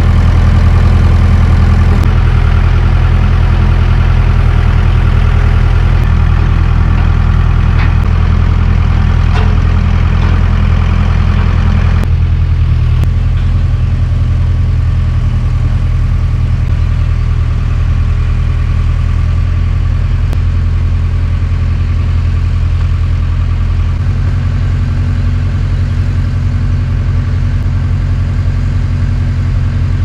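Engine idling steadily with a deep, even low hum. A few light knocks come in the first ten seconds, and the engine's higher-pitched noise drops away about twelve seconds in while the low hum carries on.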